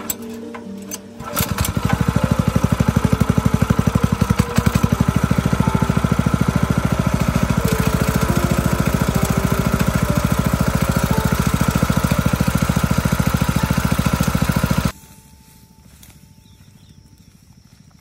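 Small petrol engine driving a portable weed-spraying pressure pump starts up about a second in and runs fast and steady with an even, rapid firing beat. It cuts off suddenly about three seconds before the end.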